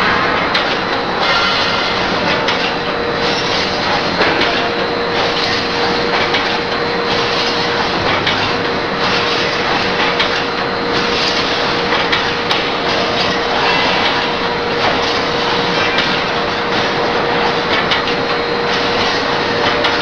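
Wire mesh welding machine running: repeated clanking of its welding and feed strokes over a steady hum.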